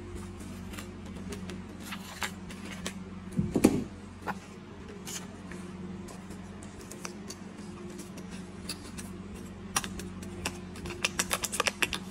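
Scissors snipping at the top of a kraft paper bag, then brown paper rustling and crinkling as folded flaps are handled and peeled open. A louder crumple stands out about three and a half seconds in, and a quick run of small crackles comes near the end.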